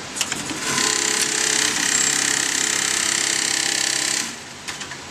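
Automatic pocket-setting sewing machine at work: a few sharp clicks from its folding clamps, then a steady whirring hiss for about three and a half seconds that cuts off abruptly.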